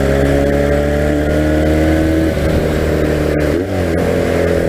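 1982 Honda motorcycle engine running under way, its pitch climbing slowly. About three and a half seconds in the note dips briefly and picks up again.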